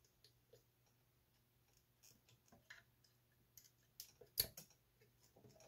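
Faint scattered clicks and scrapes of a metal pick prying up a transistor tab on a circuit board as the solder is melted, with one sharper click about four seconds in, over a faint low steady hum.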